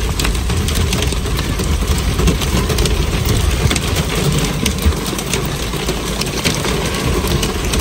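Hail and heavy rain hitting the car's roof and windshield, heard from inside the cabin: a dense, irregular patter of sharp ticks over a steady low rumble.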